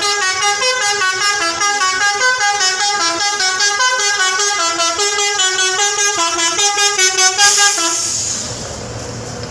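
Multi-tone 'telolet' musical bus horn playing a quick melody of stepped notes. It cuts off about seven and a half seconds in, leaving a low rumble.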